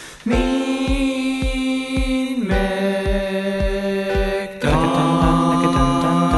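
Music: held, droning chords that change every two seconds or so over a steady low kick-drum beat, about three beats a second.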